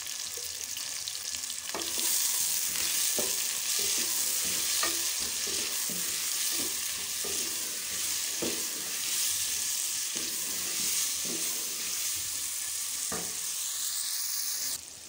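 Sliced onions sizzling as they fry in hot oil in an aluminium pressure cooker pot, getting louder about two seconds in. A wooden spatula stirs them, knocking and scraping against the pot every second or so.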